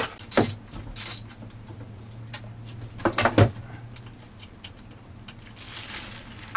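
Metal clinks and knocks of a battery cable's ring terminal and post hardware being handled as the positive lead comes off a deep-cycle battery: several sharp clinks, the loudest about three seconds in, over a steady low hum.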